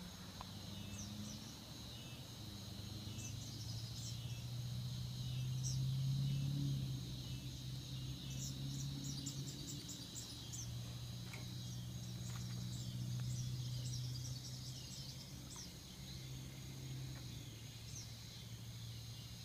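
Cicadas and other insects buzzing steadily at a high pitch, with runs of quick high chirps. Under them runs a low steady hum that is the loudest sound.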